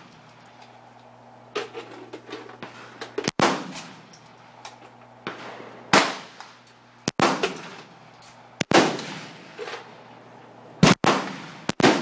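A series of single gunshots, about seven, spaced irregularly one to three seconds apart, each followed by a short echoing tail.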